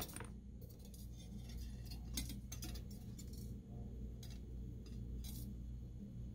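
Thin copper and stainless steel sheets handled and lifted, giving a few faint, light metallic clinks and rattles, over a steady low hum.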